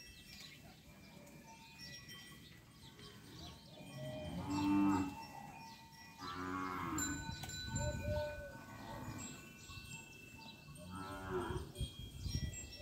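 Kankrej cattle mooing in a herd, several separate calls a few seconds apart.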